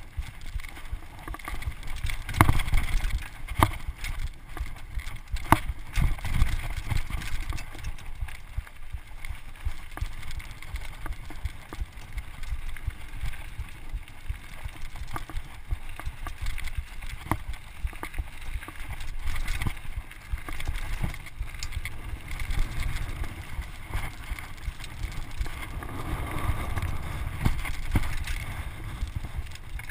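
Mountain bike rolling fast down a gravel and rock trail: tyres rumble and crunch on the loose surface, and the bike rattles with frequent sharp knocks over stones. The hardest knocks come about two and a half and five and a half seconds in. Wind buffets the microphone.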